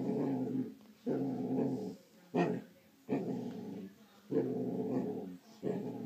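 Basset hound growling in a run of short growls, each under a second long and about a second apart, with a sharper bark-like burst a little over two seconds in.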